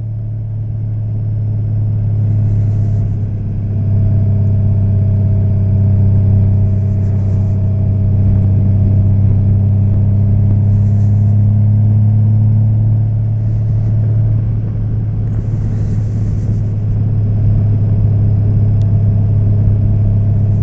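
A 2014 Honda Valkyrie's 1832cc flat-six engine running steadily under way, its level rising a few seconds in, with a few brief hissing sounds over it.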